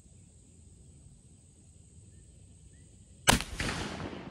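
A Lyman Great Plains muzzleloading rifle fires one shot of a 70-grain charge of 3F black powder about three seconds in: a single sharp report with an echo that fades over about a second and a half.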